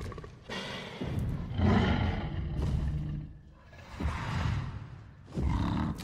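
Film sound effect of a Tyrannosaurus rex roaring: a deep, loud roar about a second and a half in, followed by two shorter roars near the end.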